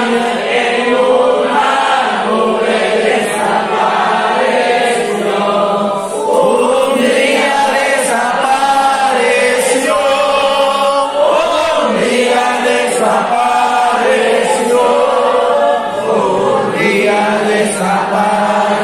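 A group of voices singing a hymn together in slow, continuous phrases, with a faint tick about every second and a half.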